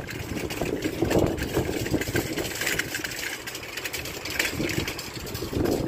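Wire shopping trolley pushed over car-park asphalt, its wheels and metal basket rattling in a dense, continuous, noisy clatter.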